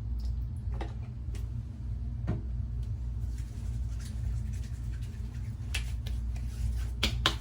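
Steady low room hum with a few faint clicks and taps from a bottle of witch hazel being handled.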